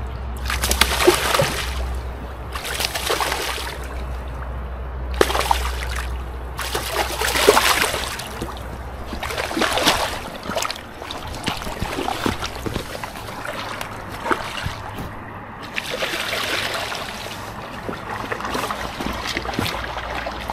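River water splashing and sloshing in repeated irregular bursts as a hooked salmon is fought in the shallows and brought to the bank, with a steady low hum that fades about halfway through.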